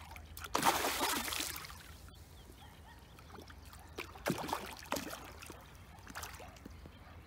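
A hooked carp splashing at the water's surface as it is brought in to be landed: irregular bursts of splashing, the loudest about a second in and another around four to five seconds in.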